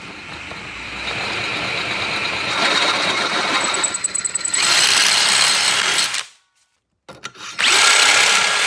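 Cordless DeWalt drill boring a 1/2-inch bit through a metal spark plug non-fouler clamped in a bench vise, cutting away the inside to open it up. The drilling grows louder over the first few seconds, stops abruptly about six seconds in, and starts again a second or so later.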